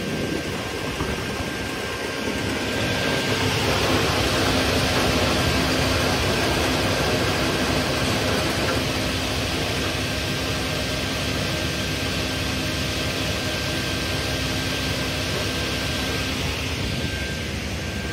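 Raimann ProfiRip KR 310M single-shaft chain-feed multi-rip saw, with a 55 kW main motor, running with a steady drone and hum. It grows louder about three seconds in and eases off a little later.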